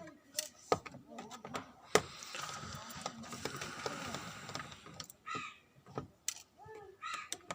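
Small sharp clicks and taps of tools and plastic parts being handled on an opened smartphone, with a scraping rustle lasting about two seconds in the middle.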